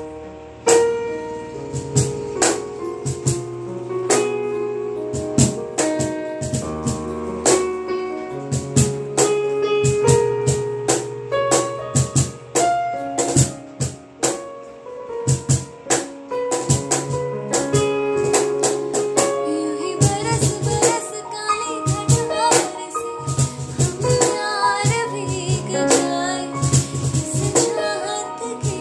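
Electronic keyboard playing piano chords and melody, with sharp percussive hits throughout; a woman's voice comes in singing about two-thirds of the way through.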